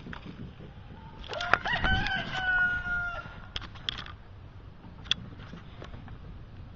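A rooster crowing once, one long held call of a second and a half or so, about a second in, with a few sharp clicks around it.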